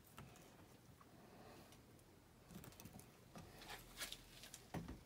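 Faint handling noise at a workbench: mostly quiet, then a scatter of soft clicks, taps and rustles in the second half, with a low knock near the end.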